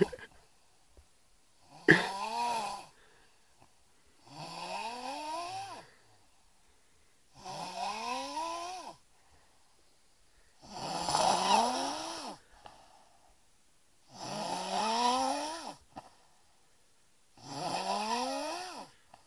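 A man snoring heavily in his sleep: six loud snores about every three and a half seconds, each rising in pitch, with quiet breaths between.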